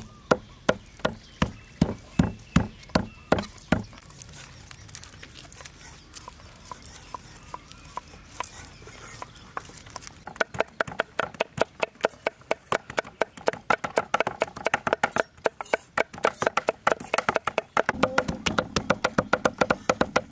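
Steel cleaver chopping pork belly on a wooden chopping block: steady strokes about three a second, then a quieter stretch of light knocks about four seconds in. From about ten seconds in, fast, rapid chopping of several strokes a second as the pork is minced.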